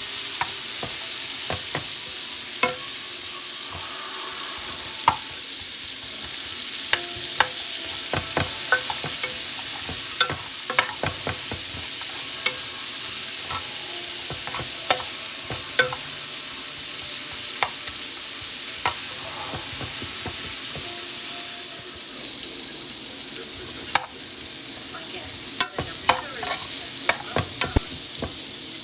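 Food frying in hot oil in a pan: a steady sizzle with scattered sharp pops and clicks throughout.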